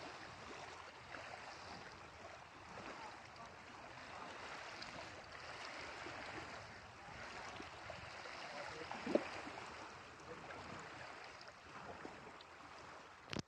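Shallow lake water lapping and sloshing at the shoreline, a faint steady wash with no speech.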